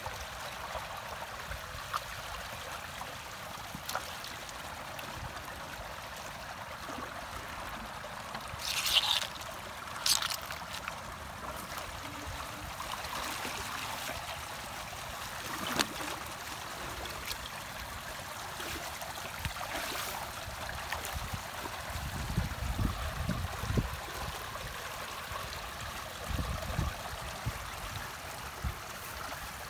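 Muddy ditch water rushing steadily through a freshly unclogged concrete culvert pipe and down the ditch. Two short, sharper splashes or knocks come about nine and ten seconds in.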